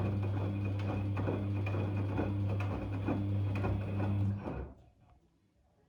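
Daewoo DWD-FT1013 washing machine running on a cotton 40°C cycle: a steady low hum with irregular clicks and knocks, which stops suddenly about four and a half seconds in.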